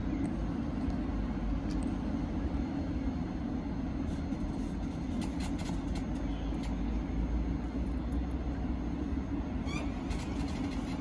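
Class 700 electric multiple unit standing at the platform with a steady low hum, and a few light clicks in the middle and near the end.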